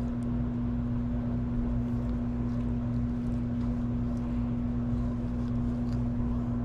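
Steady, unchanging engine hum: one strong held tone over a deeper drone.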